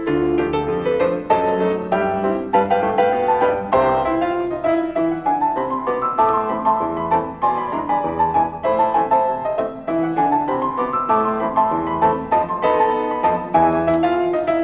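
Piano music accompanying a silent film, busy melody over bass notes with several rising runs.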